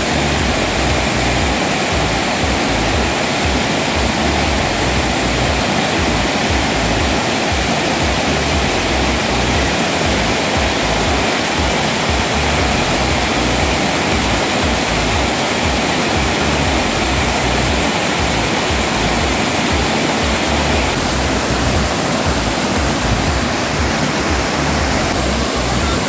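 A waterfall rushing down a rocky slope in full flow, swollen after days of rain: a steady, loud wash of water with no break.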